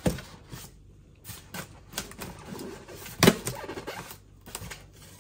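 Scattered light clicks and taps of handling, with a sharper knock about three seconds in: a resin statue head sculpt and its packing paper being handled.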